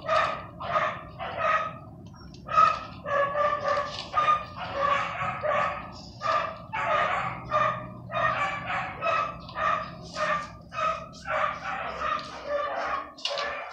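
Several dogs barking over and over, about two barks a second, with only a short pause about two seconds in.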